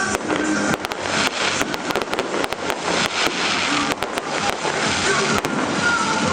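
Fireworks display: a rapid, irregular string of bangs, several a second, over continuous crackling.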